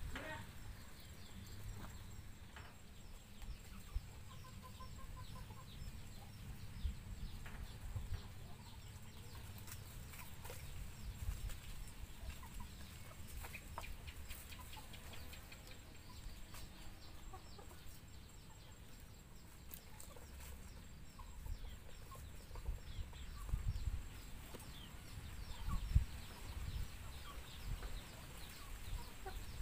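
Faint outdoor ambience with chickens clucking, over a steady low rumble on the microphone and scattered small clicks, with a few louder low thumps near the end.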